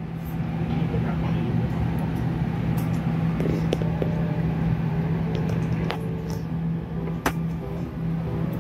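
Korean barbecue restaurant ambience: a steady low hum from the ventilation fans above the table grills, with background chatter and occasional clinks of tableware, the sharpest about seven seconds in.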